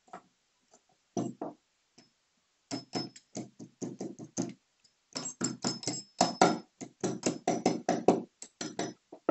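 Circlip pliers working a small circlip onto the end of a steel Yamaha RX100/135 gearbox shaft: a quick run of metallic clicks and clinks, several a second from about three seconds in, some with a short high ring as metal meets metal.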